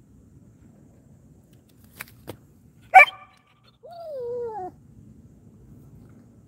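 A dog gives one sharp bark about three seconds in, then a falling whine lasting about a second, and another short bark at the very end. The whine comes as it drops into a play bow, a playful invitation. Two faint clicks come just before the first bark.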